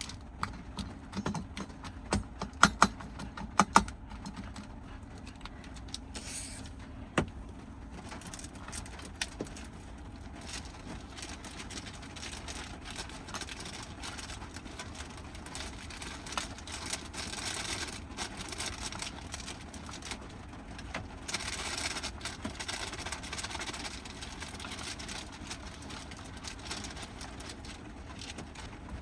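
Steady rain on the roof of a small kei van, heard from inside, with a cluster of sharp clicks and knocks in the first four seconds and one more about seven seconds in.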